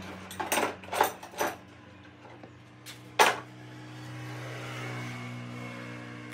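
Sharp clicks of steel pliers being handled against a car tyre's tread while a puncturing nail is worked out. Three clicks come close together in the first second and a half and a louder one about three seconds in. A steady low machine hum runs underneath and swells in the second half.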